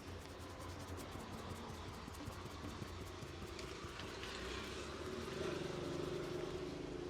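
Street traffic, with a motor vehicle engine running close by that gets a little louder about five and a half seconds in.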